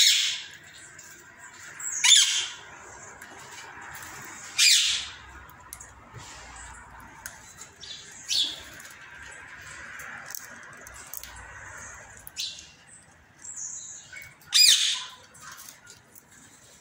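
Indian ringneck parakeets squawking: several short, high-pitched squawks a few seconds apart, with softer calls between them.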